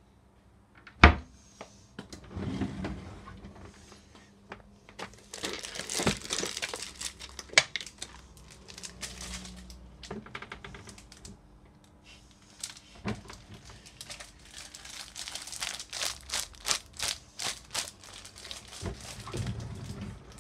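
Paper or cardboard packaging crinkling and rustling in irregular stretches as it is handled, with a sharp knock about a second in.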